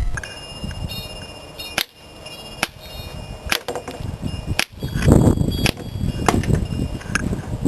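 CO2-powered airsoft Colt 1911 pistol firing a series of single shots, each a sharp crack, about a second apart.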